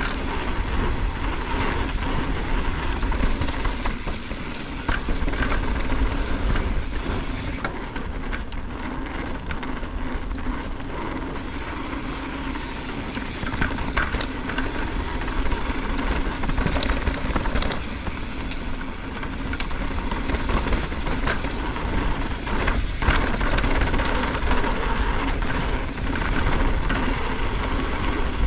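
Mountain bike descending a dirt singletrack: wind rushing over the helmet-camera microphone and tyres rolling on dirt, with frequent rattles and knocks from the bike over bumps.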